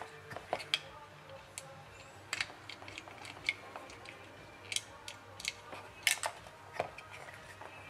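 Scattered light clicks and taps, about a dozen at irregular intervals, from a small switch-mode power supply circuit board and a screwdriver being handled on a workbench.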